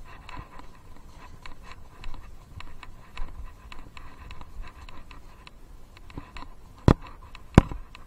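A loose chest-harness action camera rattling and scraping in its mount with the horse's walking stride: a steady run of small irregular clicks and scratches. Two sharp, loud knocks come near the end.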